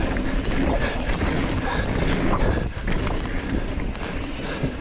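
Wind rushing over the microphone of a mountain bike riding fast down a dirt trail, with tyre noise and a few small knocks and rattles from the bike.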